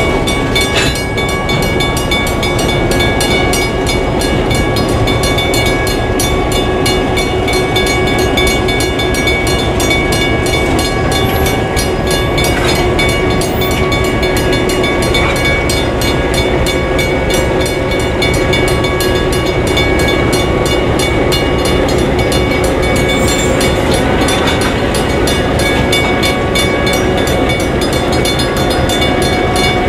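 Diesel freight locomotives, an EMD GP10 and Alco M420s, passing slowly with their engines running, while a grade-crossing warning bell rings steadily.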